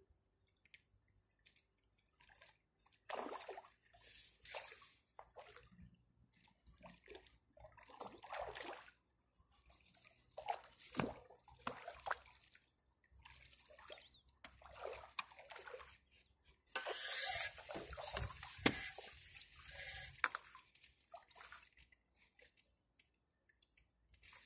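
Water splashing in irregular bursts as a hooked fish thrashes at the surface while it is played in on a pole, loudest about two-thirds of the way through.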